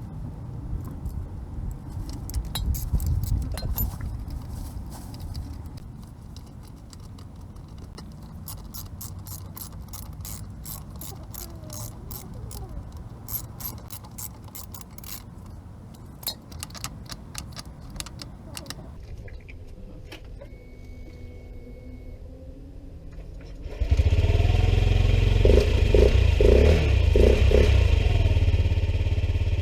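Metallic clicking, jangling and scraping as a Honda Zoomer scooter is worked on, with a run of rapid clicks in the middle. About three-quarters of the way through, the scooter's small single-cylinder engine comes on abruptly and runs loudly.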